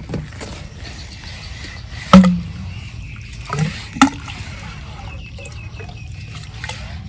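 A few short, sharp knocks and splashes at the water's edge, the loudest about two seconds in, over a steady low rumble.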